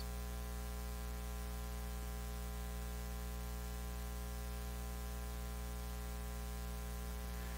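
Steady electrical mains hum with a buzzy stack of overtones over faint hiss, unchanging throughout.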